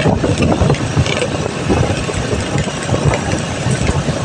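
Engine of a moving open-air vehicle running, with wind rushing over the microphone in uneven gusts.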